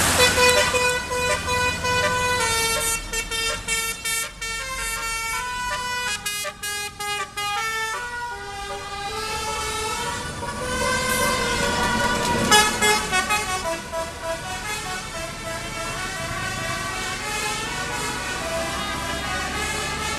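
Bus's basuri telolet horn, a multi-tone musical air horn, playing a tune in stepped notes, with a run of rapid short blasts in the middle.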